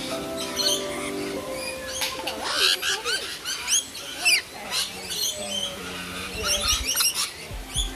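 A flock of rainbow lorikeets chattering: many short, high screeches that rise sharply in pitch, overlapping throughout.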